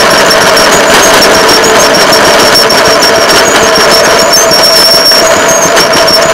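Engine of a rail motorcar running steadily as it rolls along the track, with short high squeaks coming and going.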